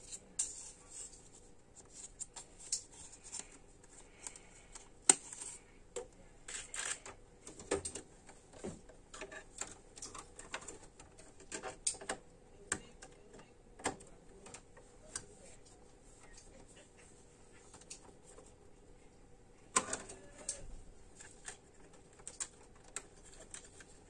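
Irregular small clicks and taps of a DDR2 memory stick and the plastic slot clips being handled while it is fitted into a Dell OptiPlex 760's motherboard. The sharpest clicks come about five seconds in and near the end.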